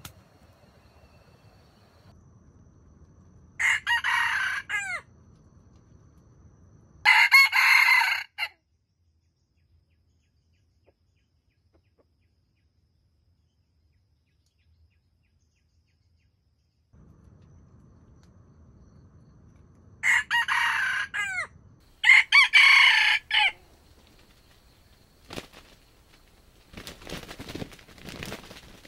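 Jungle fowl rooster crowing: four short crows in two pairs, the second crow of each pair louder. A few short scratchy noises follow near the end.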